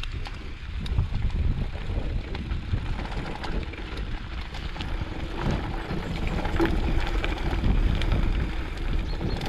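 Mountain bike riding over a grassy track: a steady rumble of wind on the microphone and tyres on the ground, with small scattered clicks and rattles from the bike over bumps.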